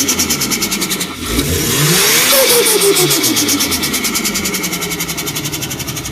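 Turbocharged car engine revving: the revs dip about a second in, climb again, then fall away. As they fall, a rapid fluttering chatter of turbo compressor surge runs on without a break, the sound of boost backing up against a closed throttle on lift-off.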